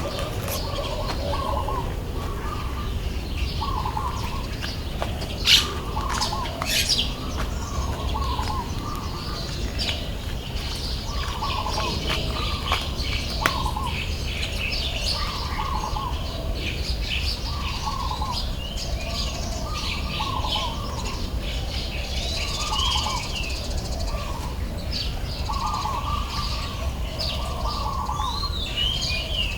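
Birds calling outdoors: one bird repeats a short call about once a second, with other birds chirping higher over it. A few sharp clicks stand out about five to seven seconds in.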